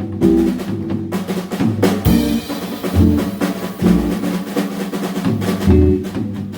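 Live jazz combo playing, with the drum kit to the fore: dense snare and bass drum hits and rolls over low pitched notes.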